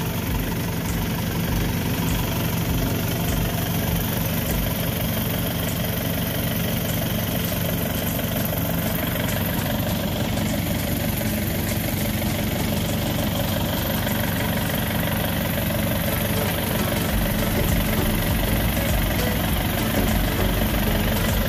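Tracked rice combine harvester's engine idling steadily, an even low drone.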